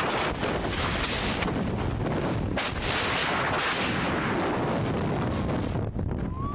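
Freefall wind rushing over a skydiver's helmet-camera microphone: a loud, steady roar that thins out near the end.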